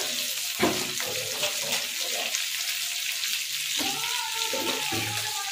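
Potato wedges, onion and tomato sizzling in hot oil in a nonstick kadai, with a knock of a wooden spatula against the pan about half a second in. A steady tone joins near the end.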